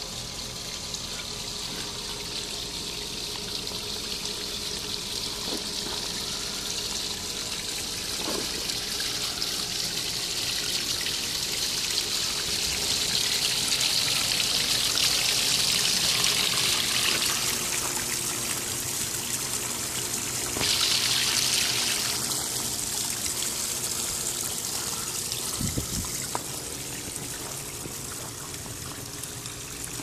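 Water from a backyard pondless waterfall splashing and trickling over river rocks into the rock-filled basin, a steady rush that grows louder toward the middle and eases off again near the end.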